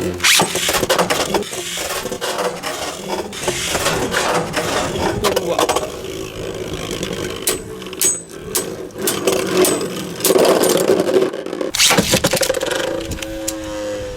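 Beyblade Burst spinning tops whirring and clashing, a dense run of clicks, knocks and scraping over a steady spinning whir.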